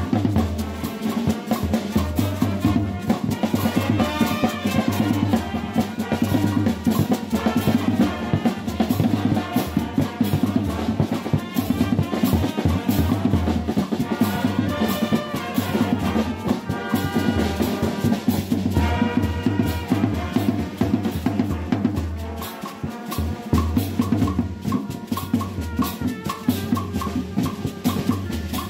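Brass band playing live: a bass drum and snare drums beat a steady rhythm under trumpets and trombones. The drums drop out briefly a little past two-thirds of the way through.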